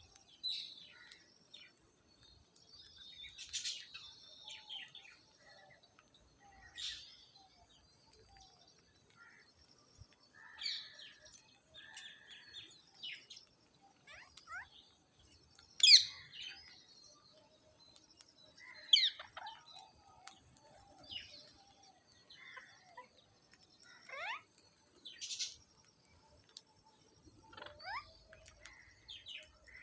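Parrots calling: short chirps and squawks scattered irregularly, some sliding up or down in pitch, with a few sharp, loud calls in the middle and late part.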